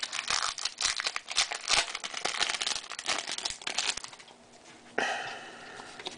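Crinkling of a foil trading-card pack wrapper and baseball cards being handled, a dense run of crackles for about four seconds, then a short swish about five seconds in.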